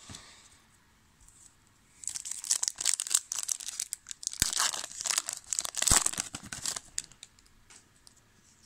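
A 2000 Topps Season Opener football card pack wrapper being torn open and crinkled by hand. A dense run of crackling starts about two seconds in and dies away about seven seconds in.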